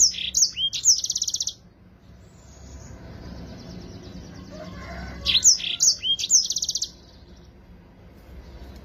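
Yellow-fronted canary singing two short phrases about four seconds apart, each a few quick down-sweeping whistles running into a fast, high trill.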